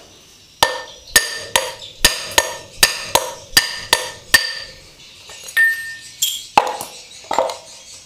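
Hammer blows on the end of a scooter's final-drive gear shaft, knocking it out of its ball bearing: about ten sharp, ringing metal knocks at a steady two or three a second, then a pause and three more uneven knocks near the end.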